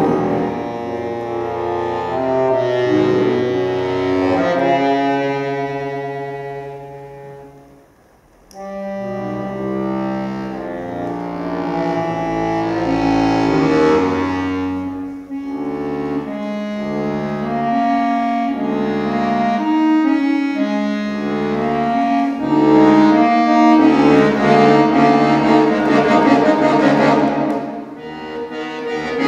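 Solo accordion playing contemporary concert music: held chords fade away almost to nothing about eight seconds in, then come back suddenly and loudly, followed by changing held chords and a busier passage of shorter chords.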